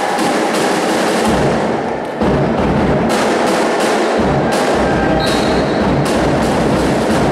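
Spectators' drums and clappers beating a loud, fast rhythm that starts suddenly as the rally ends, cheering the point.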